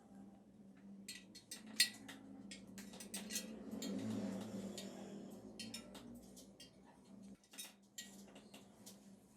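Small metal parts clinking and tapping against each other and against hard surfaces, in many separate sharp clicks with a noisier rattle midway, over a steady low hum.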